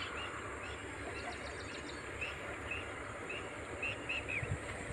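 Small birds chirping: short chirps repeating every half second or so, with a quick run of ticking notes about a second in, over a low steady rumble.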